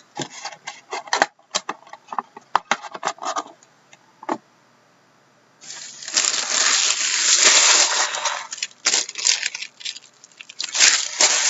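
Trading cards and cardboard card boxes being handled, with quick clicks and taps, then the packaging of a new card box being torn open, a loud crinkling rip lasting about three seconds from the middle and another shorter one near the end.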